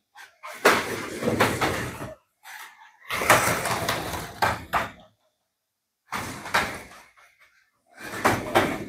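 TTS 1/24 scale March F2 slot car running laps on a plastic Carrera track, its quiet motor nearly drowned by the guide blade clattering over the track joints. The clatter comes in four passes with short quiet gaps between them: the car sits so low that the guide catches on every joint.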